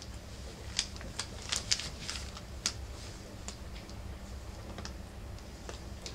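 Rough collie puppies, four weeks old, moving about their pen: irregular light clicks and scratches of paws and claws on newspaper and bedding, thickest in the first few seconds, over a low steady hum.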